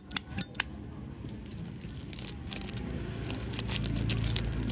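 Zippo lighter lid being flicked open and snapped shut: a few sharp metallic clicks with a faint ring in the first half second, then softer small ticks and rattles as the lighter is handled.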